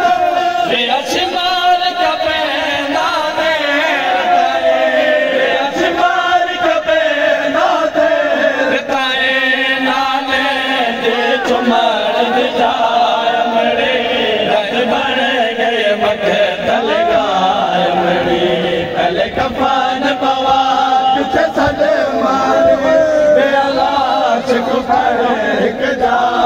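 A crowd of men chanting together in a loud, unbroken mourning chant (noha), many voices overlapping.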